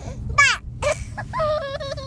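A toddler's high-pitched giggling squeals: a sharp falling squeal about half a second in, a short one near the first second, then a longer held squeal in the second half, over the low rumble of the moving truck.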